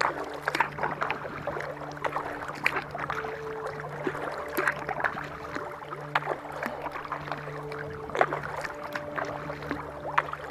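Kayak paddle strokes on calm water: the blades dipping and pulling, with water splashing and dripping in an uneven patter of small sharp splashes. The largest splash comes about 8 seconds in.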